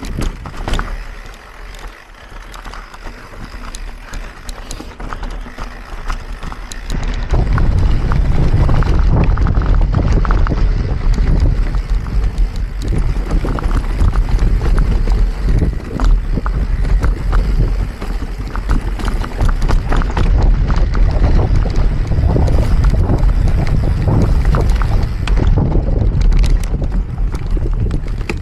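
Wind buffeting the microphone of a mountain bike's on-board camera, with the tyres and frame rattling and knocking over rough trail. It grows much louder about seven seconds in.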